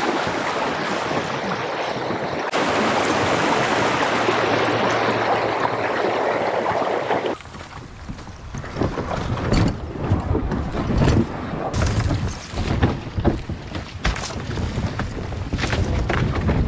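Shallow river riffle rushing past a kayak as it is led upstream through the current. About seven seconds in, the rush drops away to irregular splashing and sloshing as a person wades through calm shallow water alongside the kayak.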